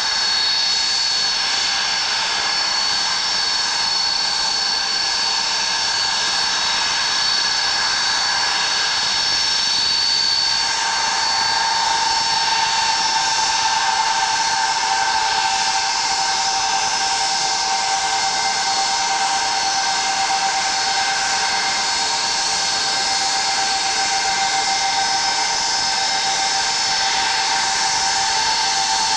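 Ilyushin Il-76 freighter's four Soloviev D-30KP turbofans running at taxi power, a steady jet whine over a rushing hiss. About ten seconds in, the main whine shifts into two slightly different pitches.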